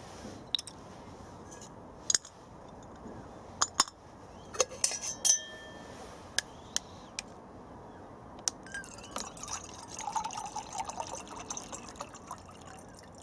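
Water being poured into the water chamber of an Esbit camping coffee maker, with a few sharp metallic clinks and knocks as the parts are handled during the first half.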